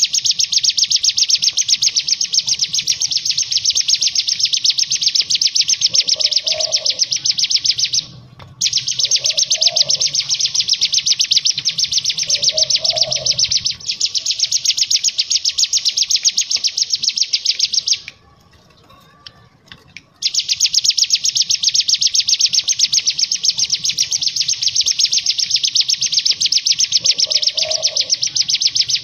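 Ciblek gunung (cigun), a prinia, singing its loud machine-gun trill ('ngebren'): long unbroken runs of very fast high notes lasting several seconds each, with a short break about eight seconds in and a two-second pause past the middle.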